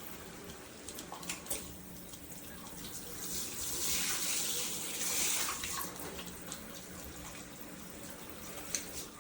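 Water spraying from a handheld shower head. The hiss swells for a couple of seconds about midway, with a few sharp clicks.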